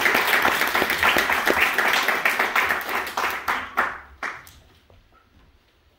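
Theatre audience applauding, the clapping thinning out and dying away about four seconds in.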